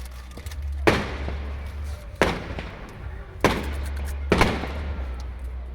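Fireworks bursting: four sharp bangs about a second apart, each trailing off in a fading rumble.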